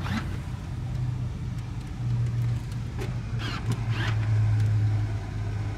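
Electric motors of the 2017 Mercedes-Benz GLS550's power-folding third-row seats running as the seats fold down at the push of a button. They make a steady low hum that swells about two seconds in and again about four seconds in.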